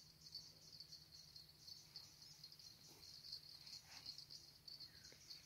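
Near silence on an open shore, with the faint, steady high-pitched chirring of insects, crickets or grasshoppers, running throughout.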